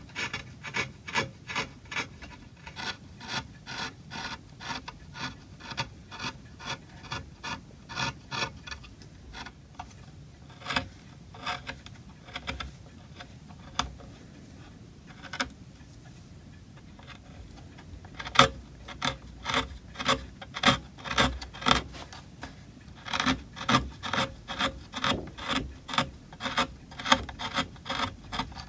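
Hand carving chisel paring walnut in short scraping cuts, about two or three a second, with fewer, quieter cuts for several seconds midway.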